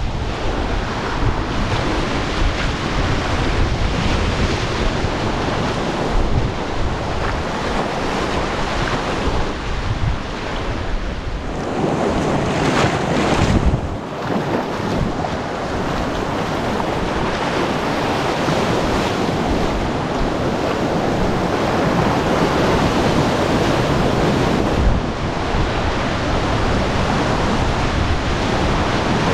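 Steady rush of river whitewater with wind buffeting the microphone. The rush grows louder for a couple of seconds about twelve seconds in.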